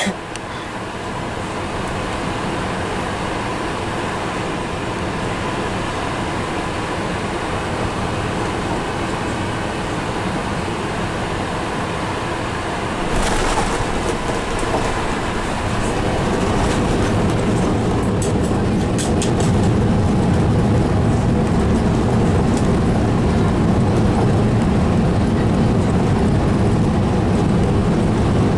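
Airbus A380 cabin noise on final approach: a steady rush of airflow and engine noise. About 13 seconds in the main gear touches down with a sudden jolt, and the sound turns into a louder low rumble of the wheels rolling on the runway as the aircraft slows.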